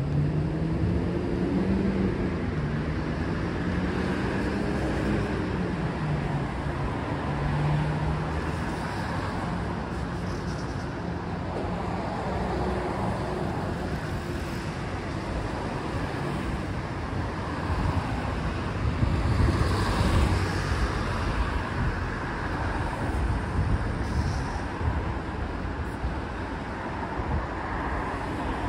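Road traffic: a steady rumble of passing cars, with one engine's note rising and falling over the first several seconds and a louder vehicle passing about twenty seconds in.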